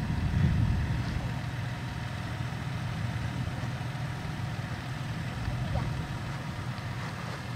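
2020 Toyota Tacoma TRD Off-Road 4x4's engine running steadily at low revs, a little louder in the first second.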